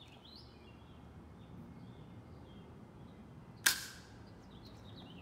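A single shot from a GameFace VooDoo spring-powered pump-action airsoft shotgun: one sharp snap about three and a half seconds in, with a brief ring after it.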